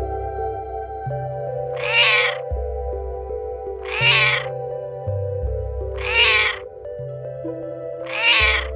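A cat meowing four times, evenly spaced about two seconds apart, each call about half a second long, over soft background music.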